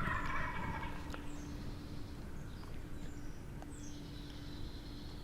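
A wild turkey gobbler gobbles once in the first second, a quick rattling call. Small birds chirp faintly afterwards, with a high trill near the end.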